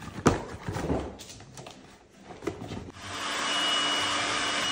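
Knocks and rustling as an air mattress is pulled from its cardboard box, then about three seconds in an electric air pump switches on and runs steadily with a high whine, inflating the mattress.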